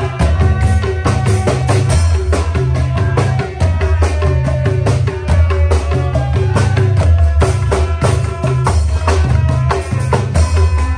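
Patrol-style music: fast, dense percussion with a heavy bass beat and repeating pitched knocks, with a melody running over it.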